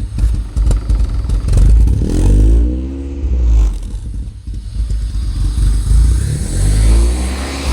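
Honda B20 four-cylinder engine in a Civic running through a Yonaka aftermarket exhaust, revved up and back down a couple of times. It is loud, which the owner puts down to an exhaust leak.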